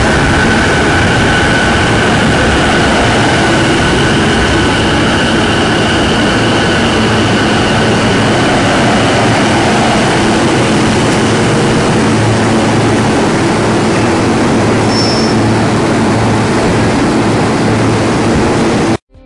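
JR East E233 series electric train pulling into the platform and slowing to a stop: a steady rumble of wheels on rail with a high electric whine that fades out about eight seconds in. The sound cuts off just before the end.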